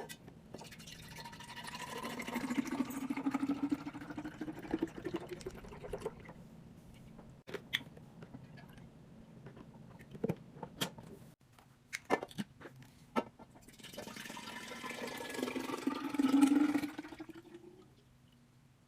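Liquid poured into a container twice, each pour lasting a few seconds, its pitch rising as the container fills. Between the pours come short clicks and knocks of containers being handled.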